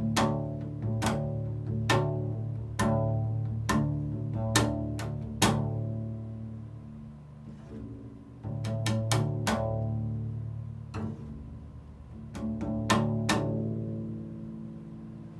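Double bass strings struck with a mallet, each stroke sounding a low note that rings on with a sharp attack. The strikes come roughly once a second, break off for a few seconds about halfway, then resume, and the last ones ring out and fade near the end.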